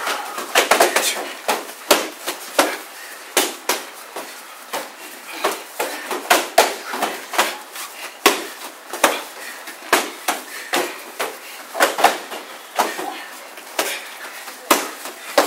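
Punches and kicks smacking into padded strike shields, several pairs hitting at once: a steady, irregular run of sharp slaps, about two or three a second.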